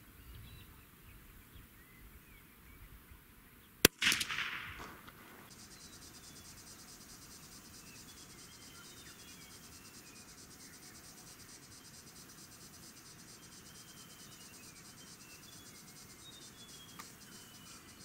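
A single shot from a CZ 455 .22LR rifle firing CCI standard-velocity rounds about four seconds in: one sharp report with a brief noisy tail. From about five seconds on there is steady, finely pulsing insect buzzing with short bird chirps.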